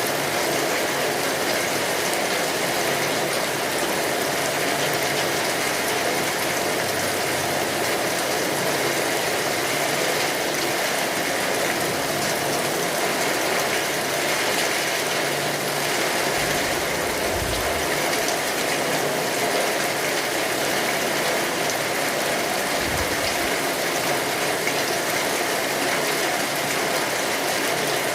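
Heavy rain falling steadily, a dense, even, crackling hiss, with two short low rumbles past the middle.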